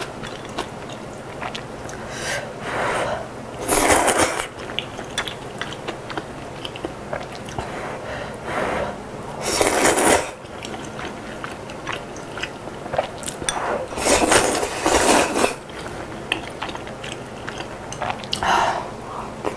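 Close-miked eating of chicken kalguksu: several loud slurps of the knife-cut noodles and broth, with soft wet chewing clicks between them.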